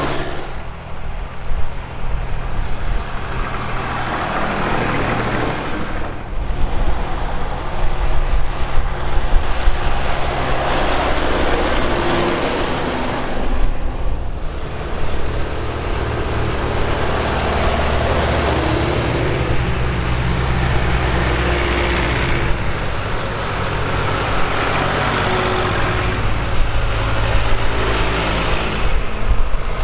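Vintage tractor engines running steadily along the road, heard from on board a moving tractor, with wind and road noise over them. The sound breaks off briefly twice, where the footage cuts.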